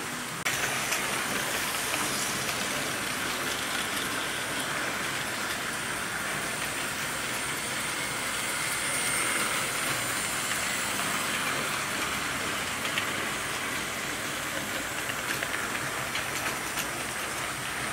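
Hornby model trains running round the layout's tracks: a steady whirring rattle of motors and wheels on the rails, suddenly louder about half a second in.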